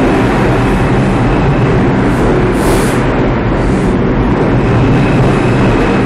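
New York City Subway R142 train departing, its cars running past the platform at speed: a loud, steady rumble of wheels on rails, with a few brief high hissing bursts between about two and four seconds in.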